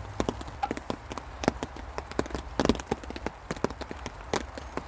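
Heavy rain dripping onto a taut tarp over a tent: irregular sharp taps of single large drops over a steady low rumble.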